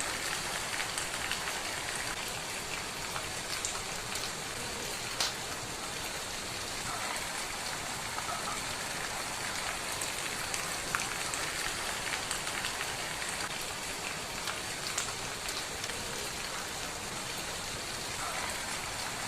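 Steady rain falling, with scattered sharp pops and crackles from a wood fire, a couple of them louder than the rest.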